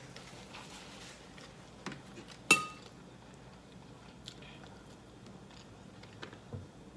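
Close-up eating sounds: quiet chewing of turkey leg, with a sharp ringing clink of hard tableware about two and a half seconds in and a few softer clicks.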